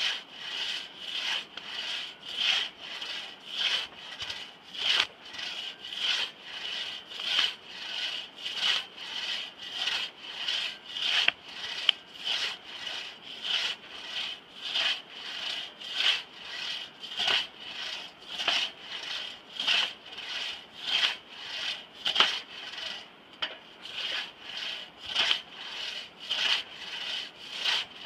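A crosscut saw worked by one person through a large log: a steady rasping rhythm of about three strokes every two seconds, with a brief lull late on.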